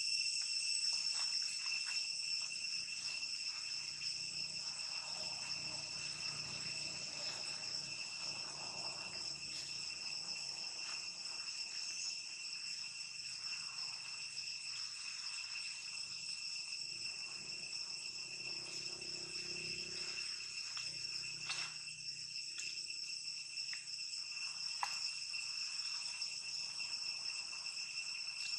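Steady, high-pitched insect chorus droning without a break, with a couple of faint clicks in the second half.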